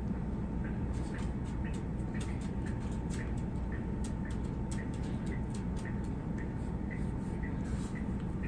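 Room tone with a steady low hum and a faint steady tone, a faint tick about twice a second, and soft small sounds of hands rolling jam-spread biscuit dough into a log on a floured board.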